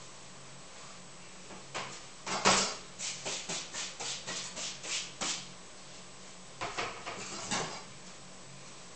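A quick run of sharp knocks, about three a second, from kitchen work at the counter. A shorter cluster of knocks follows about a second later.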